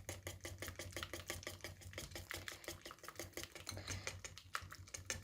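Whisk beating thin pancake batter in a bowl: quick, even strokes, about eight a second, each with a light click of the wires against the bowl.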